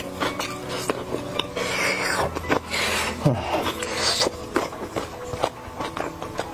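Close-miked eating sounds: chewing and wet mouth noises from spiced sheep's head meat, with quick clicks and rustling as gloved hands pick through the platter.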